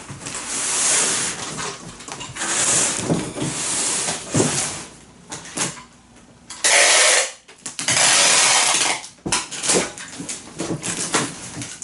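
Cloth-backed packing tape being pulled off the roll in several loud, noisy pulls of about a second each, with knocks and rustles as it is pressed onto a cardboard box.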